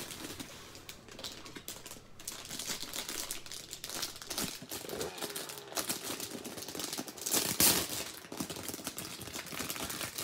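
Clear plastic packaging crinkling and crackling as hands unwrap it and slide a flat metal tin out, with a louder rustle about seven and a half seconds in.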